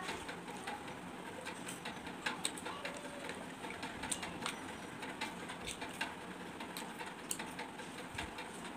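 Eating sounds: chewing of fried fritters and fingers picking food off a plate, heard as a run of irregular small clicks and crunches.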